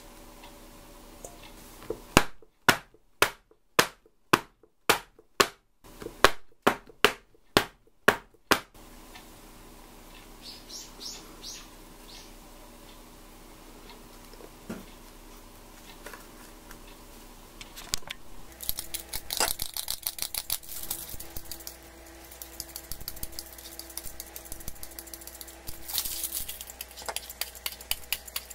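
About a dozen sharp knocks, roughly two a second, for several seconds. Later comes a long run of rapid scratchy scraping as a knife blade shaves a bar of dark chocolate into a glass bowl.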